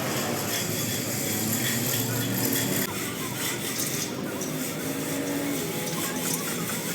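Workshop metalworking noise: a steady rasping, rubbing sound of a tool working on metal, with a faint low hum underneath.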